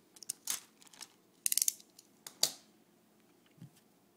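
Sharp clicks and snaps of a hand tool on small metal hard-drive parts: a few clicks, a quick rattle of clicks about a second and a half in, and a loud snap around two and a half seconds, with a soft knock near the end.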